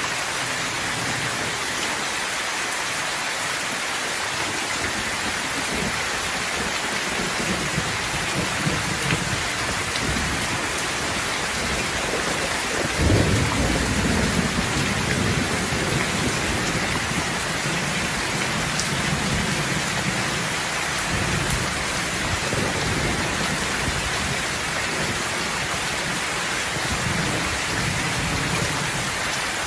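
Steady rain falling, with low rolling thunder coming and going. About 13 seconds in, a sharper, louder thunderclap breaks out and rumbles on for a few seconds.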